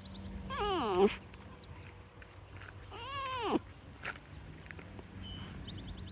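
Two drawn-out pitched cries from a pet animal. The first comes about half a second in and slides down in pitch; the second, about three seconds in, rises and then falls.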